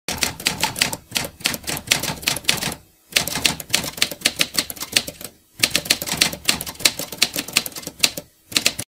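Typewriter keys clacking in rapid runs, as a typing sound effect: three long bursts of quick strikes split by short pauses, then a few last strikes near the end.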